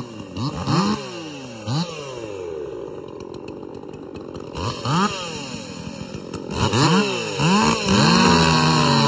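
Ported 43cc Echo two-stroke chainsaw running low and uneven, blipped up and down about seven times in short revs, then held at steady full throttle near the end.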